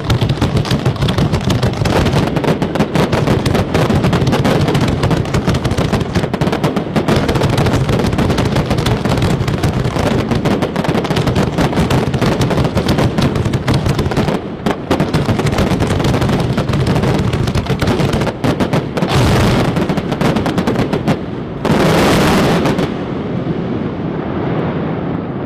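Daytime smoke fireworks fired from a line of barge-mounted launchers: a dense, continuous barrage of launches and bursts, the reports so close together they sound like rapid gunfire. Two louder rushes come near the end, and then the barrage starts to thin out.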